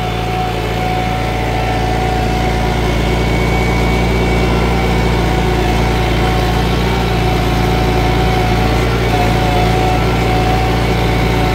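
Kubota tractor's diesel engine running steadily while plowing.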